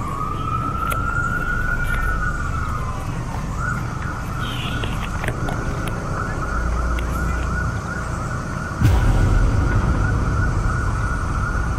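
Emergency vehicle siren: a slow rising-and-falling wail that switches, about three and a half seconds in, to a fast warbling yelp. It sounds over a steady low rumble that gets suddenly louder about nine seconds in.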